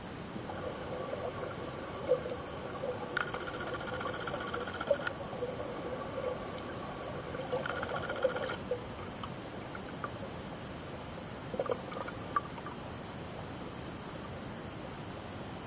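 Muffled steady hiss of a camera recording underwater in a river, with scattered small clicks and knocks and faint tones that come and go.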